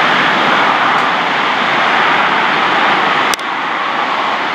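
Jet engines of a Boeing 777 airliner on final approach, a steady rushing noise without a clear whine. A single sharp click about three seconds in.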